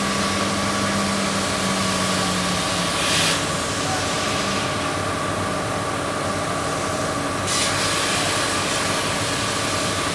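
Laser cutting machine running as it cuts plywood: a steady mechanical hum and hiss with a constant whine. A lower hum stops a little under three seconds in, and a short burst of louder hiss follows just after.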